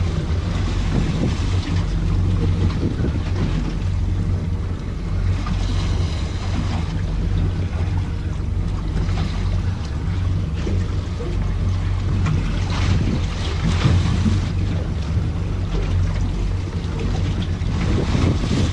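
Boat engine running at a steady pitch, under wind on the microphone and water noise.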